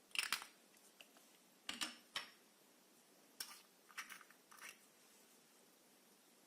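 Glitter slime being handled, giving short sticky crackling clicks in about six separate bursts with pauses between.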